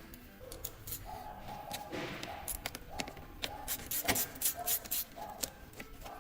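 Hand tools clicking and knocking against metal engine parts during disassembly: a string of sharp, irregular clicks, busiest in the second half.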